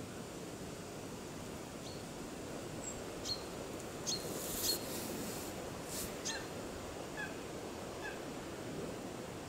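Steady outdoor wind rush, with a scattering of short, high bird chirps through the middle, the later ones dropping in pitch, and a few sharp clicks among them.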